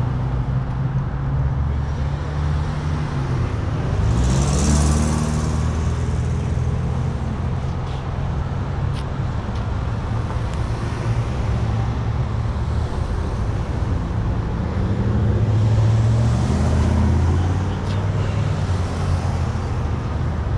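Road traffic passing close by: a steady engine hum, with one vehicle going by about four seconds in, its engine note dipping as tyre hiss swells, and another passing later.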